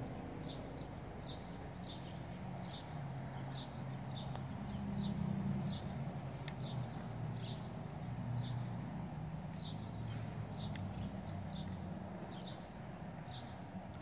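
A bird calling over and over: a short, high, down-slurred note repeated about one and a half times a second, over a low steady rumble.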